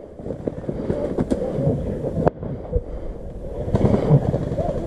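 Leaves and branches rustling and scraping as someone pushes through dense undergrowth, with wind buffeting the microphone. Two sharp clicks stand out, about a second in and again a second later.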